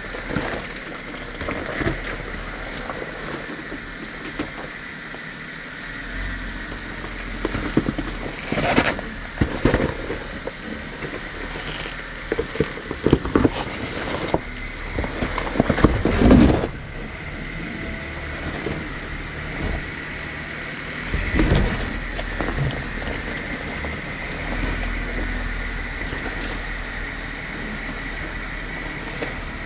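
Jeep Wrangler JKU Rubicon's V6 engine running at a slow crawl down a rocky obstacle, with a steady high whine, and bursts of crunching and knocking from the tyres and suspension on rock, loudest about halfway through and again a little later.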